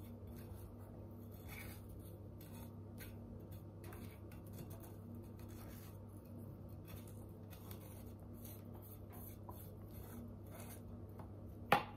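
Faint scratching, rubbing and small clicks of fingers handling a small round container on a tabletop, over a steady low hum, with one sharper click near the end.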